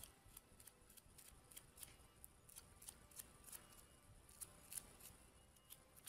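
Faint, irregular scratching strokes of a small brush scrubbing old gunk from the gear teeth of a Singer 401A cam stack.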